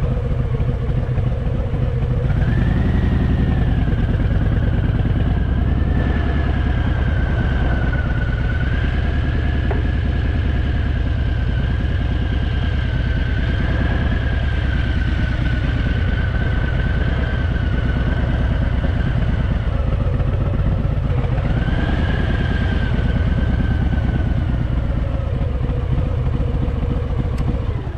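Harley-Davidson Fat Boy's V-twin engine running under way. It picks up in pitch about two seconds in and again near the twenty-two-second mark, then eases back down.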